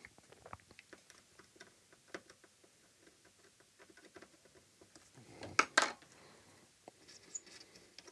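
Faint, irregular scratching and ticking of a glass fibre pen scraping corrosion and damaged solder mask off a circuit board's copper traces, with one louder rasp about five and a half seconds in.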